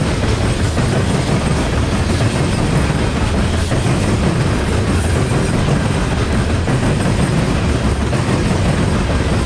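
Loaded CSX coal cars of a freight train rolling past: a steady, heavy rumble of steel wheels on the rails, with no break.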